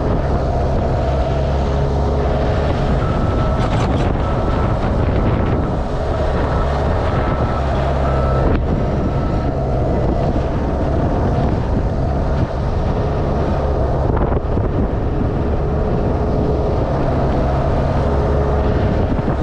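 Engine running steadily at an even speed, with a strong low hum.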